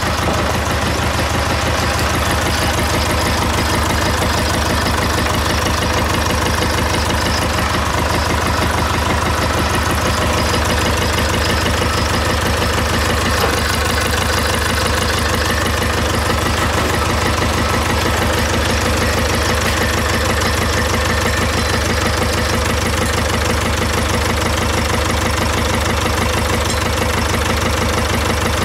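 Citroën 1.6 HDi four-cylinder diesel idling with a steady, rapid clatter, running with no oil in it after about twenty minutes without oil.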